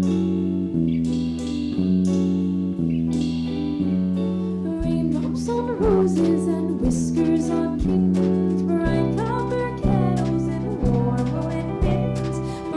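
A small jazz combo playing: a steady bass note about once a second under guitar and piano chords. A wavering melody line joins in about five seconds in.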